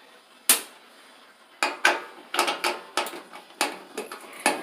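Sharp metal clicks and knocks from tools and screws being handled at the back of a front-load washing machine's top panel: one single knock, then a quick irregular run of clinks about a second and a half in.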